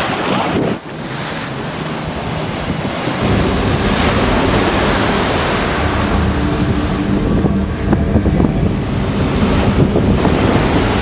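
River water washing in small waves over the edge of a flooded cobbled quay. From about three seconds in, wind buffets the microphone with a low rumble.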